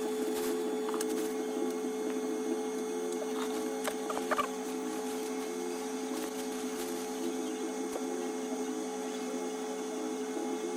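Hot air rework station's blower running with a steady hum. A few faint ticks come about four seconds in.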